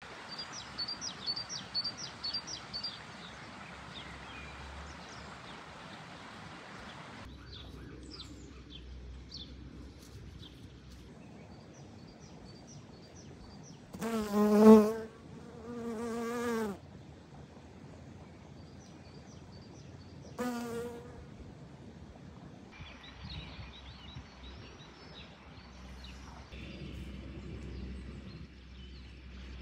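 Honeybee buzzing in flight close by: a loud, wavering buzz for a couple of seconds near the middle, and again briefly a few seconds later. Faint high chirping runs underneath at the start and between the buzzes.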